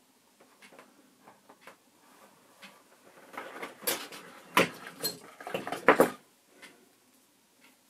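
Hands working inside an opened Super 8 projector's chassis: a few faint clicks, then a busy run of clicks, knocks and light rattles of metal and plastic parts from about three seconds in to about six seconds in, with two sharper knocks near the end of it.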